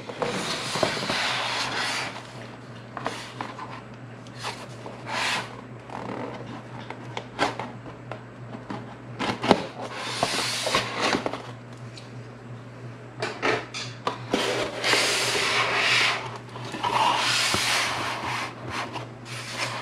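Corrugated cardboard mailer box being opened and handled: the lid and sides scraping and rubbing in irregular stretches, with scattered sharp clicks and knocks.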